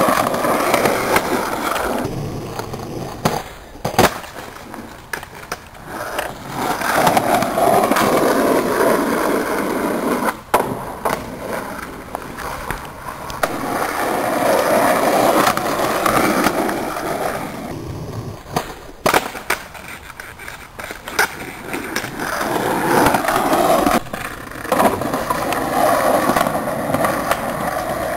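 Skateboard wheels rolling over rough asphalt, the noise swelling and fading as the rider pushes and coasts. Sharp clacks of the board hitting the pavement come several times.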